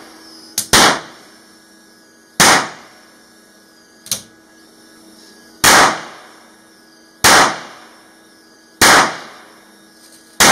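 Simulated cannon fire from a model ship's gun turret: six sharp bangs, each dying away over about half a second, mostly about 1.6 s apart with a longer gap in the middle, as the barrel recoils.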